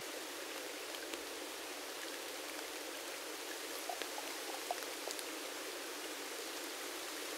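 Steady rain falling on the forest leaves: an even hiss with a few scattered drips.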